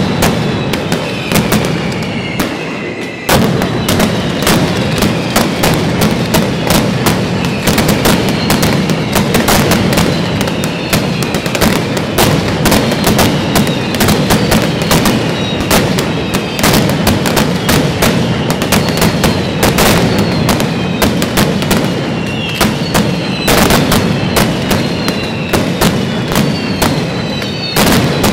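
Mascletà: strings of firecrackers going off in a dense, continuous barrage of loud bangs, with falling whistles over the top. There is a brief lull about three seconds in, then the barrage resumes at once.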